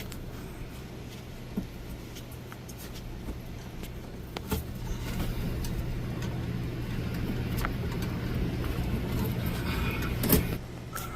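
A steady low machine hum with scattered sharp clicks and knocks, the loudest knock near the end.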